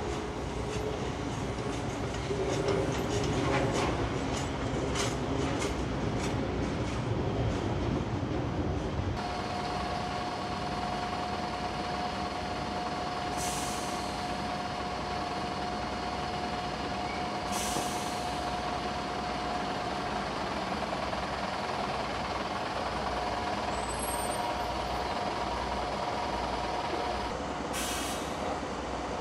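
A train hauled by a Pt47 steam locomotive rolls slowly through the station, its wheels clicking over the rail joints. Then a diesel multiple unit stands idling with a steady whine, broken three times by short hisses of released air.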